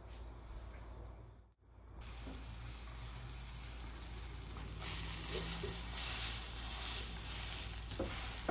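Tuna melt sandwiches sizzling in a nonstick frying pan over medium heat as they are turned and pressed with a spatula. The sizzle cuts out for a moment about a second and a half in, then grows louder after the flip, with a few light clicks near the end.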